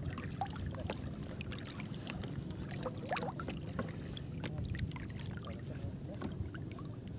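Seawater sloshing and swishing around a person wading waist-deep through shallows, with scattered small splashes and clicks.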